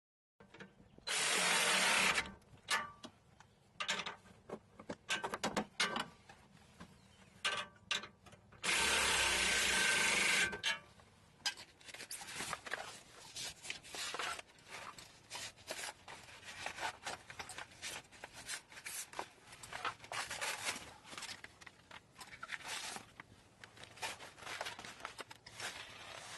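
Hand tools working on exhaust fittings: scattered metallic clicks and scraping, with two steady bursts of noise about two seconds long, one about a second in and one near the middle.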